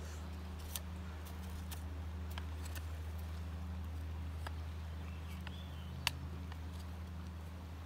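Knife whittling a wooden stick to a point: a handful of short, irregular scraping clicks as the blade shaves the wood, over a steady low hum.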